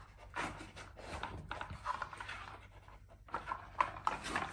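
Plastic dog treat puzzle clicking and rattling as an Alaskan Malamute noses and shifts its spinning layers to get at the treats, with the dog sniffing and panting. The clicks come irregularly and bunch up near the end.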